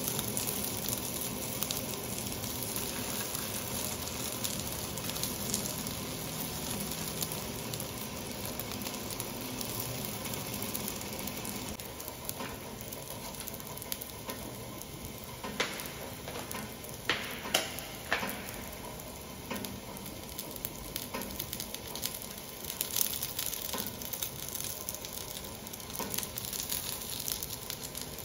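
Scored sausages sizzling in oil in a nonstick frying pan, a steady frying hiss, with a few sharp clicks about halfway through.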